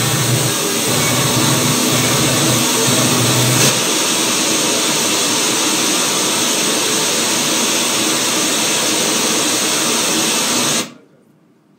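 Live harsh electronic noise from tabletop electronics: a dense, loud wall of hiss-like noise over a low drone that drops away about four seconds in. The whole sound cuts off abruptly near the end.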